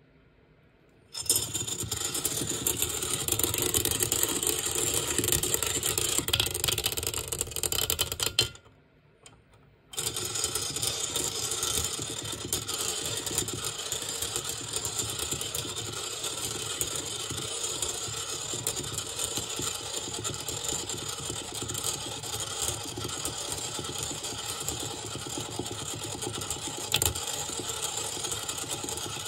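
Steel balls rattling against the glass bottom of a water-filled cylinder as a stirrer base spins them, over the stirrer's running motor. The sound starts about a second in, stops for about a second and a half near the eight-second mark, then runs on steadily.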